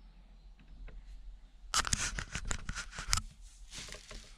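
Plastic masking sheet rustling and crinkling in a crackly burst of about a second and a half, starting a little under two seconds in, with a softer rustle near the end.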